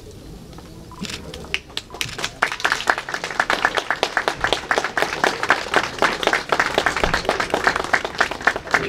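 Crowd applauding: scattered claps start about a second in and build to steady, dense clapping.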